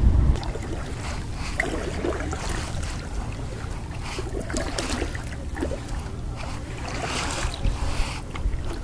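Kayak paddle splashing and dripping in the water at irregular moments, over a steady low rumble of wind on the microphone.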